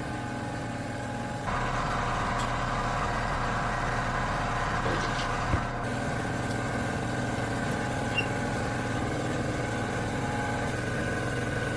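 A steady mechanical hum with several fixed tones, like a motor running. It steps up in level about a second and a half in and then holds steady. A single knock comes about halfway through.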